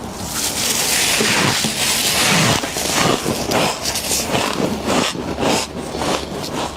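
Crunching of frost close to the microphone: a dense crackle for the first two or three seconds, then a run of separate crunches.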